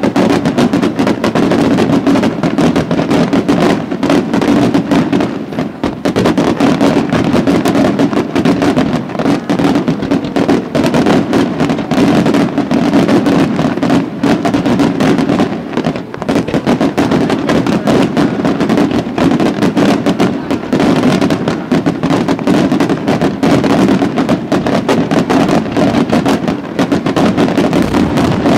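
Aerial firework shells bursting in a dense, continuous barrage: many sharp bangs close together with crackling, and no break.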